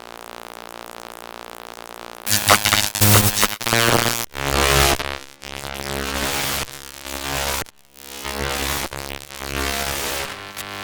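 Designed electrical sound effects: a steady electric hum drone, then from about two seconds in a run of loud, crackling, buzzing electric arcs and zaps, each a second or two long with brief breaks between.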